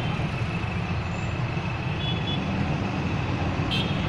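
Heavy diesel engine running steadily with a low, even rumble.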